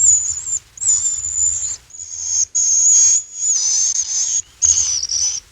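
Bats chirping and squeaking: a high-pitched, wavering whistle broken into short stretches with brief gaps, like the static and tuning between stations on an old radio, over a faint low rumble.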